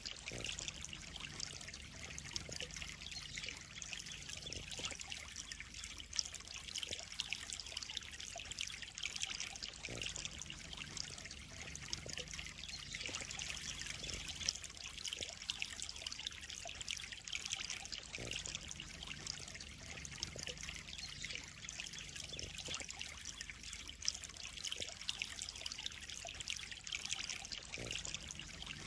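Water trickling steadily into a koi pond, an even, unbroken splashing.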